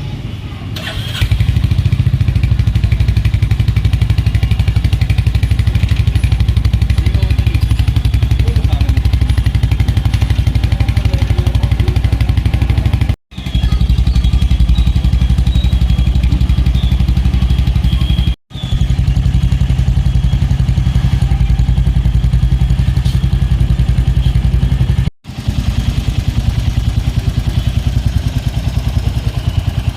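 Royal Enfield Hunter 350's single-cylinder engine starting about a second in, then idling steadily with an even exhaust beat. The sound cuts out briefly three times.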